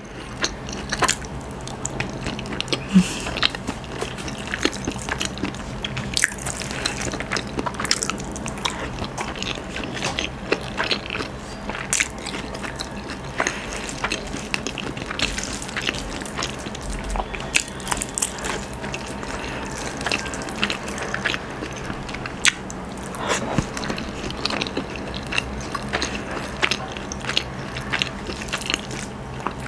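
Close-miked eating: biting and chewing a boiled egg and chicken pastil with rice, with many small wet mouth clicks, and fingers pressing and mixing the rice on a banana leaf. A faint steady hum lies underneath.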